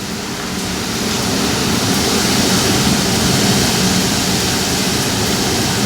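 Hurricane wind and rain making a loud, steady rushing noise that builds a little over the first second or so.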